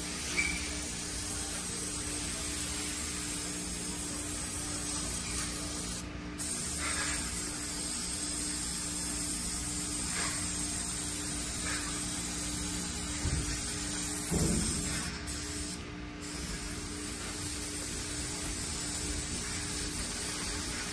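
Aerosol spray can hissing as it sprays into a transmission case, a steady hiss over the low, even hum of shop equipment.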